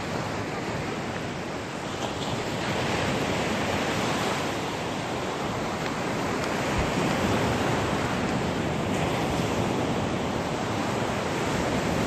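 Sea surf: waves breaking and washing up the shore in a steady rush that swells and eases as each wave comes in, with some wind on the microphone.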